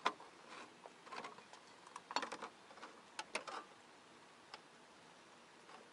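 A few sharp clicks and light taps from handling an aluminium cover panel and its wiring, spread over the first three and a half seconds, then only faint background.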